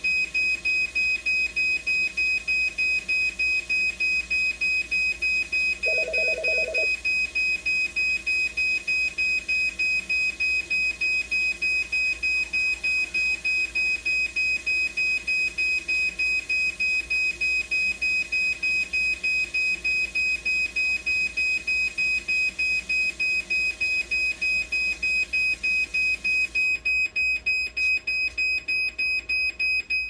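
Dialysis machine alarm beeping: a high, rapid beep about three times a second, with a short lower two-note tone about six seconds in. The alarm cuts off suddenly at the end.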